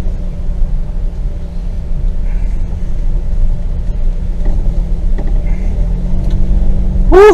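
Car engine and tyre rumble heard from inside the cabin as the car crawls slowly over a rough dirt trail: a steady low rumble. A loud pitched, pulsing sound starts right at the end.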